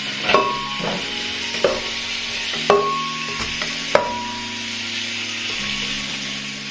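Pan-roasted tomatillos being scraped from a frying pan into a glass blender jar: about five sharp knocks, several with a brief glassy ring, as they drop in and the pan and spatula strike the jar. Under them runs the steady sizzle of pork ribs frying in lard.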